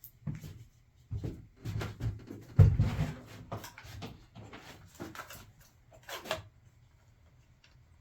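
Irregular wooden knocks, bumps and rubbing from pieces of wood being handled and set in place, with the loudest thump about two and a half seconds in.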